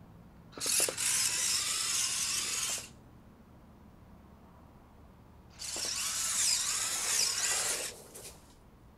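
Drive motors and gearing of a small 3D-printed Juno robot car whirring in two bursts of about two seconds each as it drives and turns.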